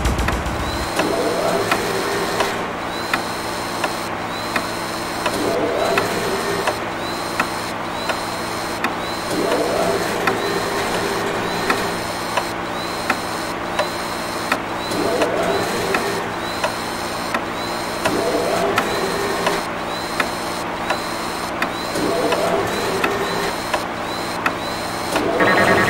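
A rhythmic mechanical sound-design loop: a constant hum with a sharp click about once a second, and a short whirring swell every three to four seconds.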